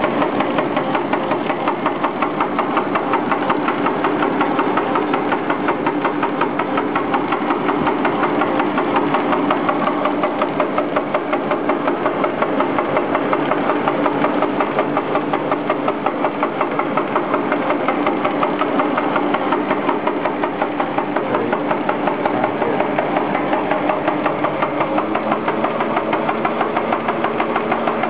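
SRD320 slitter rewinder with a die-cutting station running, its rollers, slitting knives and die station processing a label web with a steady machine noise and a fast, even pulsing beat. A low steady hum joins near the end.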